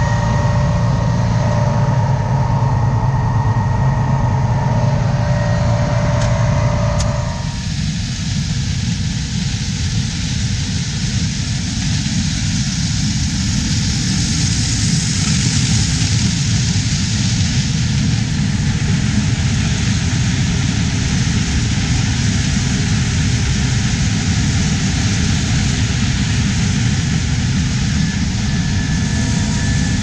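Case IH 5130 Axial-Flow combine running, first as a steady machine hum with clear tones, then, about seven seconds in, cutting to the broader rushing noise of the combine harvesting corn, heard close to the corn head.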